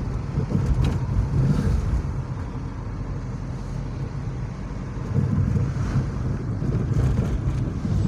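Car driving, heard from inside the cabin: a steady low rumble of engine and tyres on the road, with some wind noise.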